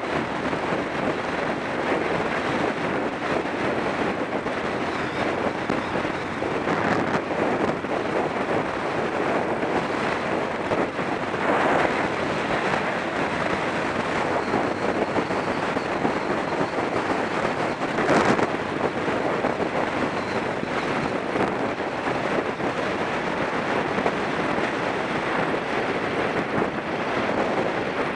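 Steady wind rush over the microphone of a camera on a moving Sinnis Stealth 125 motorcycle, with a couple of brief louder swells about 12 and 18 seconds in.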